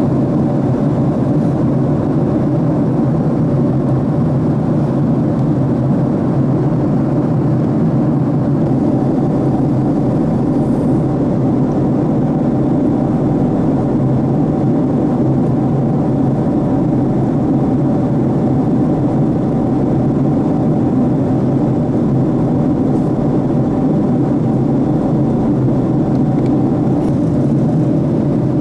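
Steady cabin noise of a Boeing 767-300 jet airliner in flight, heard from a window seat by the wing: the engines' drone and rushing airflow, with a faint steady hum in it.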